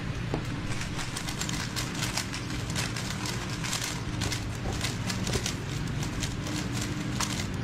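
Rapid, irregular plastic clicking of a speed cube (3x3 puzzle cube) being turned by hand, over a steady low hum.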